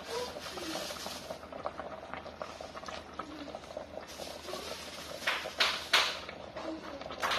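Pot of chicken and wonton soup boiling on a stove: steady bubbling and popping, with a few brief, louder rushes of noise in the second half.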